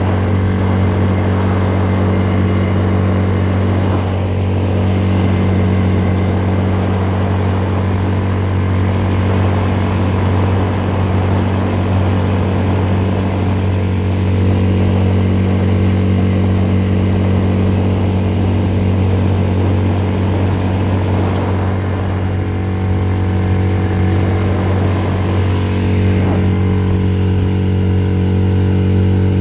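Small outboard motor running steadily, driving an inflatable boat at a constant speed.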